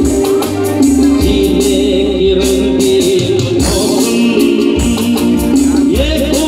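Live band playing an Indian film song through a PA system, with electric guitars, keyboards and a steady percussion beat, and a male voice singing over it.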